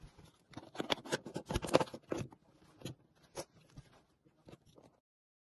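Handling sounds of a DJI Action 2 camera and its touchscreen module on a tabletop: a quick run of clicks, taps and scrapes, then a few scattered taps, cutting off suddenly near the end.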